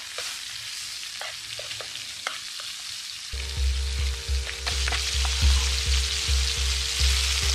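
Carp pieces frying in oil in a pan on campfire coals, sizzling steadily, with light clicks and scrapes of a utensil stirring against the pan. About three seconds in a low rumble joins, and the sizzle grows louder a little later.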